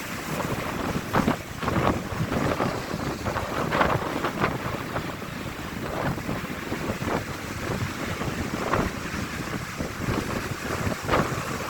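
Strong wind buffeting the microphone in irregular gusts, about 60 mph, over the wash of ocean surf breaking on the beach.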